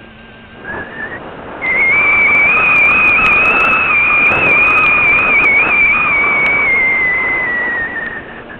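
Motor-and-propeller whine of a model aircraft, heard from a camera on board, with wind rushing over the microphone. The whine climbs in pitch and gets much louder about a second and a half in, holds high, then slides down near the end.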